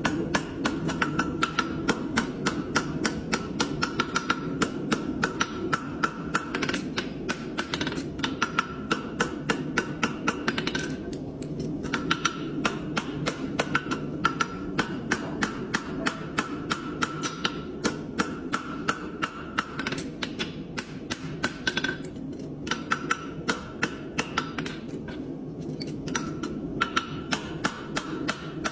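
Farrier's hammer striking a hot horseshoe on the horn of an anvil, held in tongs: a quick, even run of ringing metal blows, a few each second, broken by a few short pauses while the horseshoe is shaped.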